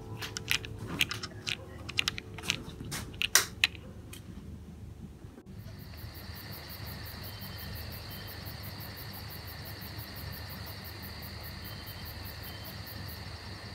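Fingers handling small plastic doll-house pieces: a quick run of sharp clicks and taps for about five seconds. Then, from about five seconds in, crickets chirping steadily in a fast, even pulse.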